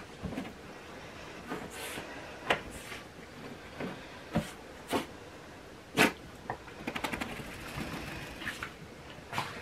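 A small wet dog rolling and rubbing herself dry on towels on a carpet: towel rustling with scattered soft knocks, the sharpest about six seconds in, and a quick run of ticks a second later.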